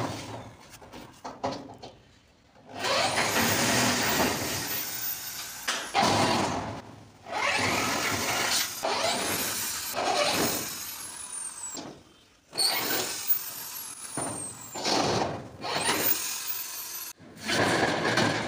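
Corded electric drill run in about six bursts of a couple of seconds each, its motor pitch rising and falling with each trigger pull, backing the fixing screws out of a corrugated metal roof sheet.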